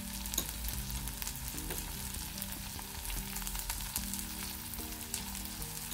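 Onions, tomatoes and curry leaves frying in coconut oil in a clay pot: a steady sizzle with scattered small crackles.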